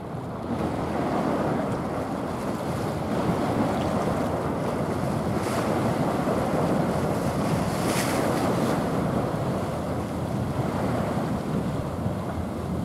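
Wind buffeting the microphone over the steady wash of choppy sea, a rushing noise with no engine note standing out.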